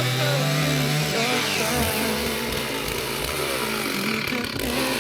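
Chainsaw running at speed while cutting through an oak log. Its steady pitch breaks up and wavers about a second in, as the cut loads the engine.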